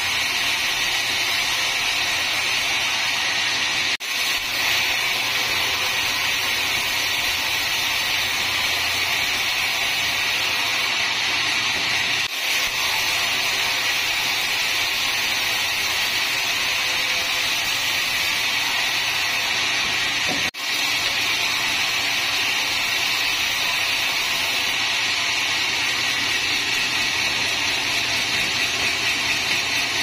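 Large vertical band sawmill running steadily, its blade ripping lengthwise through a teak log.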